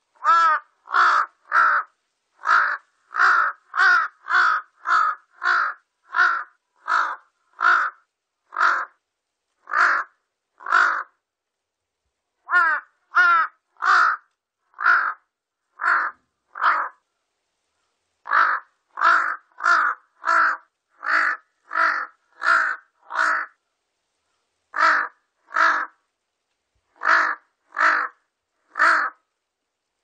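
Large-billed crow cawing over and over: short, harsh caws come in bouts at one or two a second, broken by two brief pauses.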